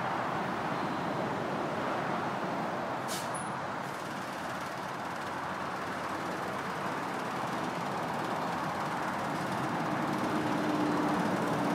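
Diesel engines of two lifting cranes running steadily. There is a short hiss about three seconds in, and a low drone grows louder near the end.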